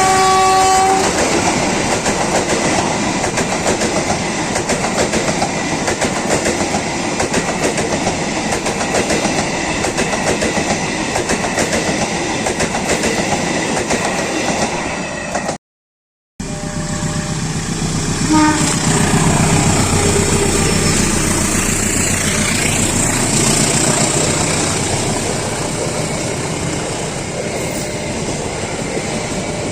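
Passenger trains passing on the track: a horn chord ends about a second in, followed by a steady rush and rattle of wheels on rails. About halfway the sound cuts off abruptly, then another train is heard passing, with a brief horn note a couple of seconds after the cut.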